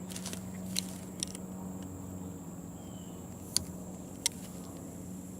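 Four short, sharp clicks of a hand tool working at an old plug in a car tire, over a steady low hum and crickets chirping steadily.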